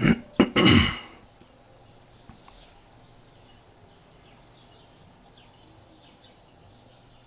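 A man sighs loudly in the first second: a short catch of breath, then a longer breathy exhale. After it comes only a faint steady hum with a few faint clicks.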